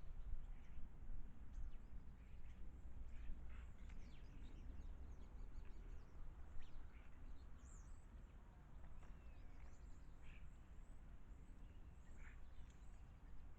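Garden birds chirping and calling in short, scattered notes over a steady low background rumble of outdoor ambience.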